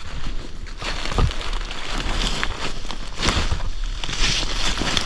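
Footsteps crunching and shuffling through snow-dusted dead leaves, with a few sharper knocks along the way.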